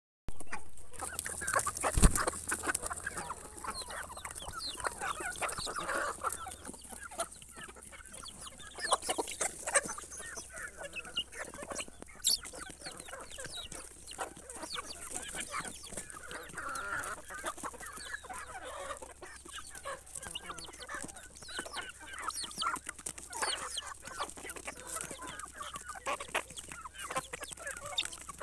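Flock of hens clucking close by, with many small ticks and taps and one louder thump about two seconds in.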